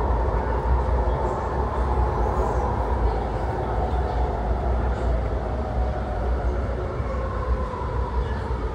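Driverless Sydney Metro train (Alstom Metropolis) heard from on board as it brakes into an underground station platform: a steady low rumble of wheels on rail with an electric whine falling in pitch as it slows, and a second falling whine starting near the end.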